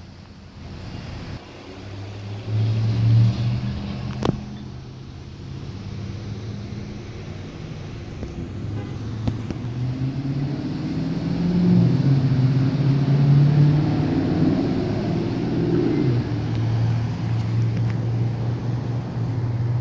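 Car engines running with road traffic, a low hum that shifts in pitch and swells louder about halfway through, with one sharp click about four seconds in.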